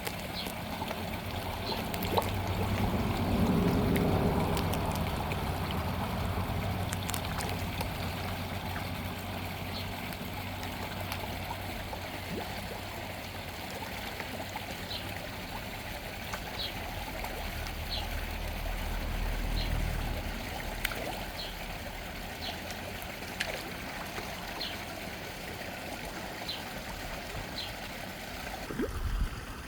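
Small waterfall splashing steadily, a constant rush of running water. A low rumble swells twice, and short high ticks are scattered through it.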